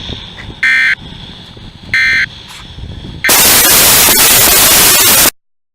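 Two short buzzy bursts of EAS end-of-message data tones from a NOAA weather radio, about a second apart. A few seconds in, a loud harsh blast of static-like noise lasts about two seconds and cuts off abruptly: the camera's overheated microphone distorting.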